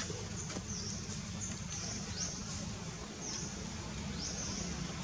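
Outdoor wildlife ambience: a thin, high-pitched chirping call repeated roughly once a second, over a steady low hum.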